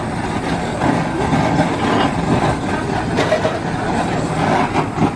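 Handheld gas blowtorch burning with a steady, loud hiss of flame as it sears a raw squid on a wire grill.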